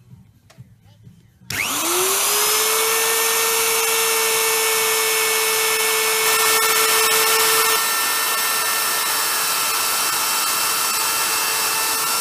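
Electric plunge router switched on about a second and a half in. Its motor whine rises quickly to speed, then runs steadily and loudly.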